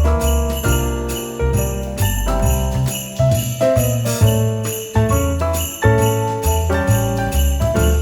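Upbeat Christmas background music with sleigh bells jingling on the beat over a bouncing bass line.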